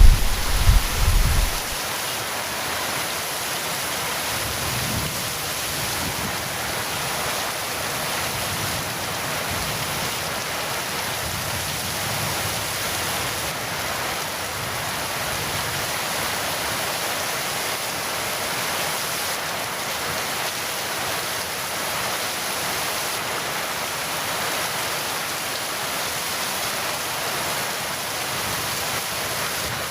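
Heavy rain falling steadily, with the tail of a thunder rumble dying away in the first two seconds.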